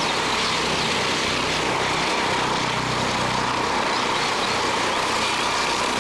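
A formation of Eurocopter EC120 Colibri helicopters flying low and hovering: steady turbine and rotor noise with a low hum and a faint steady tone.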